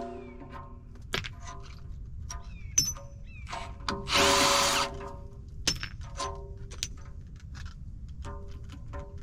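Impact gun running a mulcher tooth bolt down in one burst of about a second and a half, about four seconds in. Scattered sharp metal clinks and knocks from handling the tools and tooth hardware fall around it.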